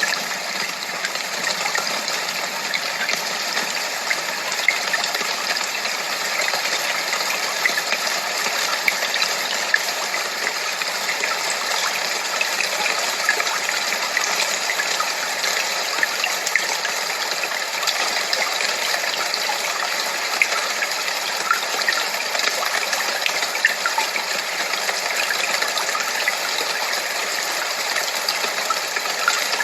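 Steady rushing white noise that sounds like running water, flecked with small scattered ticks; a masking-noise track.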